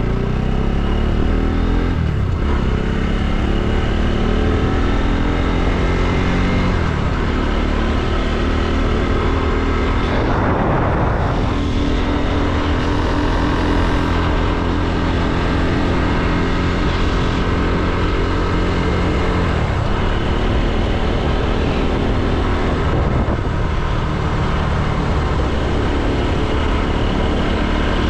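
Motorcycle engine running on the move, its pitch stepping and sliding up and down with throttle and gear changes. There is a brief rushing noise about ten seconds in.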